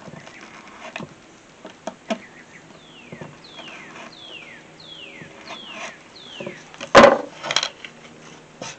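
Utility knife taking small nibbling cuts through leather, heard as scattered light clicks, with one loud knock about seven seconds in. A bird calls over and over in the background with short falling whistles.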